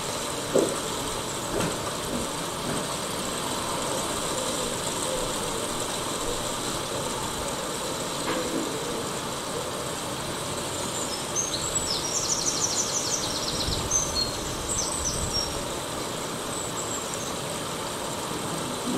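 Steady rolling and wind noise from a bicycle ridden along a paved trail, with a couple of light knocks near the start. A bird chirps and gives a rapid trill about two-thirds of the way through.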